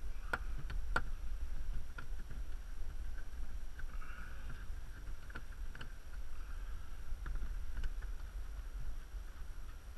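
Scattered small clicks and knocks as a screw is undone with a screwdriver and the cover of a roller-shutter box is handled, over a steady low rumble. The loudest clicks come in the first second.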